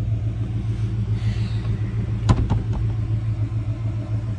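Plymouth Volare's engine idling with a steady low throb, its exhaust running through a Thrush chambered muffler. A single sharp knock a little over two seconds in.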